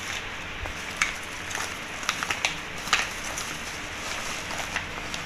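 Clear plastic bags crinkling, with a scatter of short clicks and taps as slingshots and small parts in their packaging are handled and set down, over a steady background hiss.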